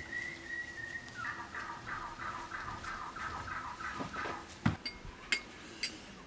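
A bird calling: one held note, then a rapid run of about a dozen short calls, about four a second, lasting some three seconds. A few sharp knocks follow near the end.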